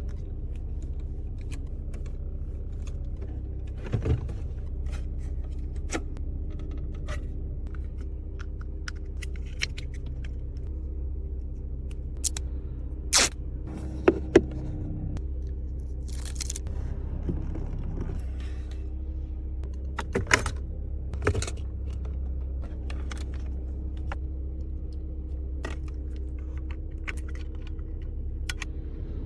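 Steady low rumble of a car heard from inside the cabin, with scattered clicks and short scrapes, a few of them sharper around the middle.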